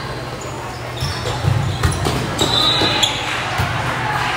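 Volleyball play in a gymnasium: a few sharp ball hits and bounces on the court, short high squeaks of shoes on the floor, and voices echoing in the hall.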